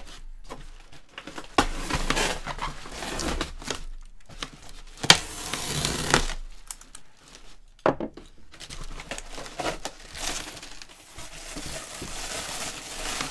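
Packaging crinkling and tearing as it is pulled apart by hand, in irregular rustling bursts. A few sharp clicks or knocks fall along the way, the loudest about five seconds in.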